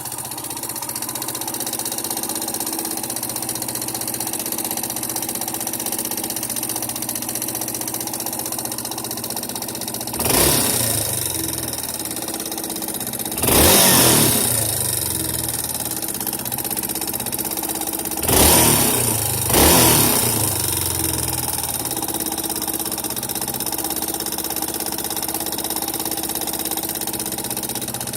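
Yamaha Serow 225 (XT225) air-cooled single-cylinder four-stroke engine idling, blipped four times with short throttle revs, two of them close together near the middle. The engine is shown for an abnormal noise after being swapped in.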